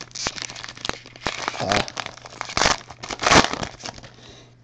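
Panini Prizm World Cup trading-card pack wrappers crinkling and tearing as packs are ripped open and handled, in irregular crackly bursts. The loudest burst comes a little over three seconds in, and the sound thins out near the end.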